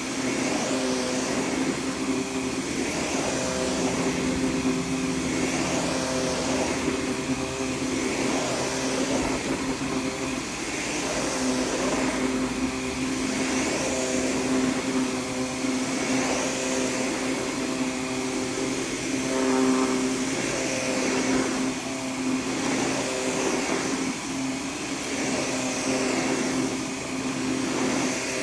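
Vacuum cleaner running steadily over the back of a rug, a motor hum with a hiss of suction that swells and eases slightly as it is worked across the rug.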